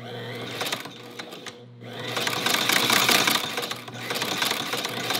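Hand-crank cobbler's leather sewing machine, driven by a small add-on sewing machine motor through a round belt, starts up about two seconds in and runs unthreaded with a fast, rapid clatter and a violent action.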